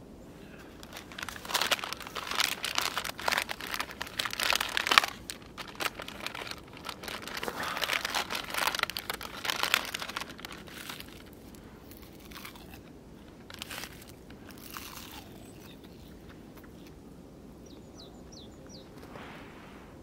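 Plastic wrapper of a packet of roasted seaweed (kim) crinkling and crackling as it is handled and opened, for about ten seconds before it goes quiet. Near the end a small bird gives a few short, faint high chirps.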